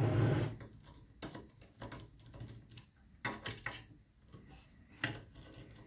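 Screwdriver working a screw out of a plastic housing, with scattered small clicks and ticks of the tool and parts being handled. A dull thump sounds at the very start.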